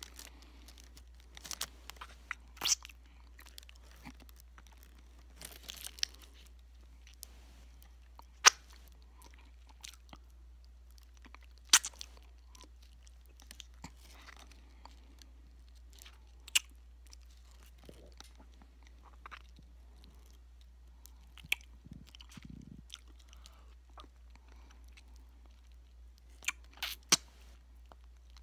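A person biting and crunching a big hard candy cane: scattered sharp cracks at irregular intervals, a few much louder than the rest, with quieter chewing between them, over a low steady hum.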